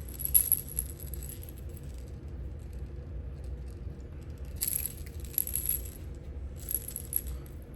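Catfish-rig fishing rattle shaken on the line, giving quick clicking rattles in three bouts: the first right at the start, then about four and a half and six and a half seconds in.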